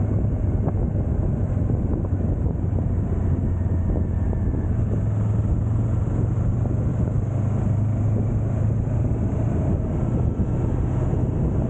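Motorcycle engine running steadily at cruising speed, its hum edging up a little midway and settling again, with wind rushing across the microphone.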